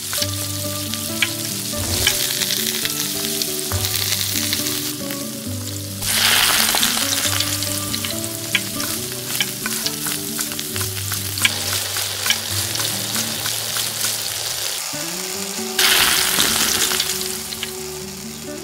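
Tomato-onion masala sizzling in a miniature steel kadai, with a small metal spoon clicking and scraping against the pan as spices are stirred in. The sizzle surges louder about six seconds in and again near the end.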